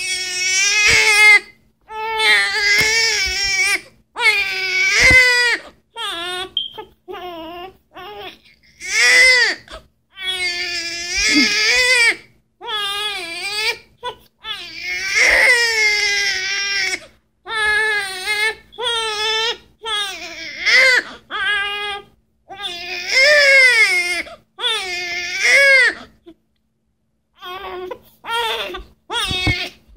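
Newborn baby crying: a run of high wails, each a second or two long, broken by short gasps for breath, with a brief pause a few seconds before the end.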